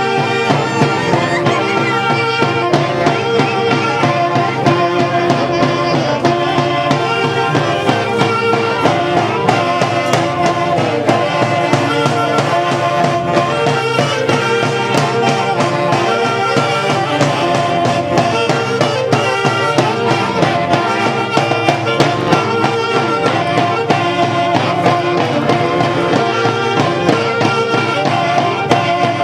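Huancayo orquesta típica playing Andean folk music: reed wind instruments carry a sustained melody over a steady beat.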